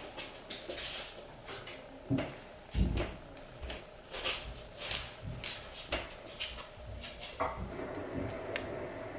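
Irregular knocks, clicks and rustling of small objects being handled, with two heavier thumps about two and three seconds in.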